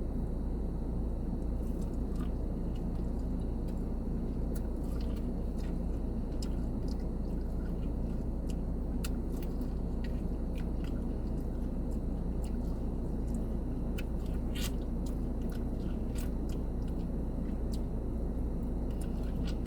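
Close-up chewing and biting on a mouthful of corn, with scattered small crunches and mouth clicks, over a steady low rumble of a car cabin.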